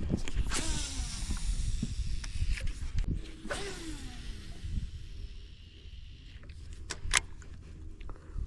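Baitcasting reel spool whirring as a lure is cast, twice, each whirr with a hiss that falls in pitch as the spool slows. Two sharp clicks near the end.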